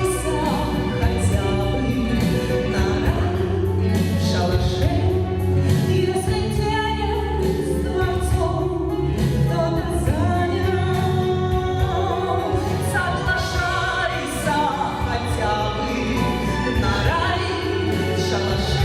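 A woman singing a slow song with instrumental accompaniment.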